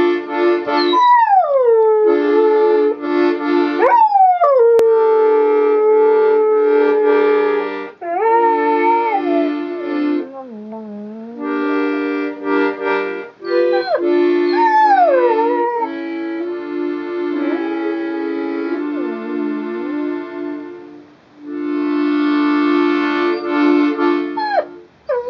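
Dog howling along to an accordion playing held chords; the long howls slide down in pitch again and again over the sustained accordion notes, with the accordion pausing briefly twice.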